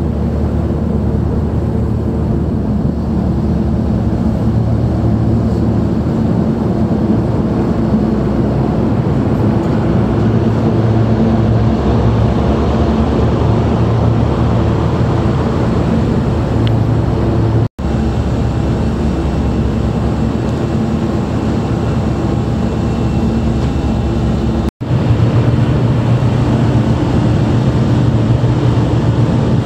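Ferry engines running with a steady low drone and several held tones. The sound cuts out for an instant twice, in the second half.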